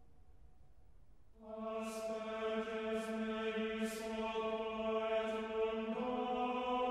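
Background music: a faint lingering ringing tone, then about a second and a half in a sustained chanted drone comes in on one held pitch, shifting slightly near the end, with brief soft hissing accents about once a second.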